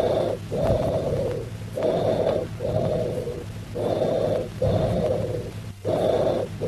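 Tubular bronchial breath sounds heard over the chest: a short inspiration, a brief pause, then a longer expiration, repeating about every two seconds. This high-pitched bronchial breathing is the sign of solidified lung with open bronchi, classically lobar pneumonia.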